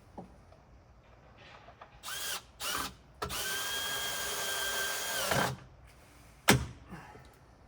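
Power drill driving a screw into a wooden beam: two short bursts, then a steady run of about two seconds. A sharp knock follows near the end.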